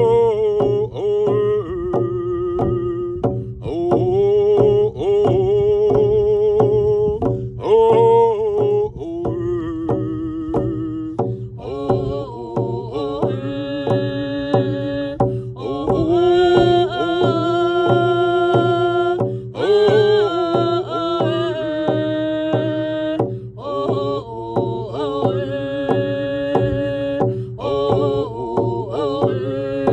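Hand-drum song: singing over the steady, even beat of frame hand drums struck with a beater.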